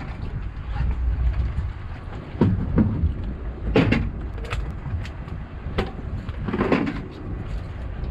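Steady low rumble of wind on the microphone aboard a fishing boat, with a few sharp knocks and clatters about two and a half, four and six seconds in.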